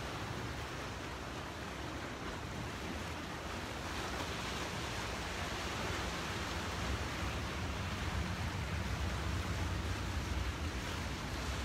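Steady rushing noise of wind and sea at a seawall, with a low wind rumble on the microphone that grows stronger about halfway through.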